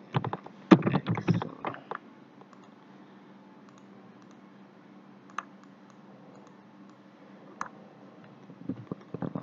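Computer keyboard and mouse clicks: a quick run of clicks in the first two seconds, single clicks now and then, and a few more near the end, over a faint steady low hum.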